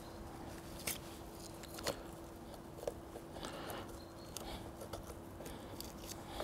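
Faint handling sounds of a spoon being worked under the membrane (silver skin) of raw pork baby back ribs to loosen it. Three light clicks come about a second apart, then a short scrape about three and a half seconds in.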